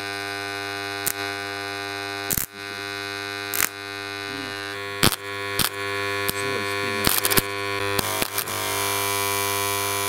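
Microwave-oven transformer rewound for high current, humming steadily under heavy load, with irregular sharp snaps and crackles as the live thick wire touches the metal fidget spinner and arcs, melting its edge.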